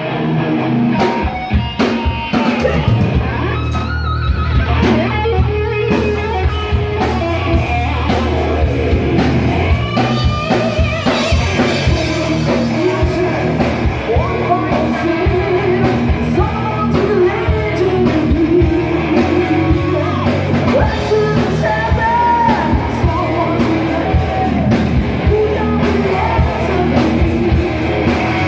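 Live rock band playing loud and steady: electric guitar, a full drum kit and a woman singing.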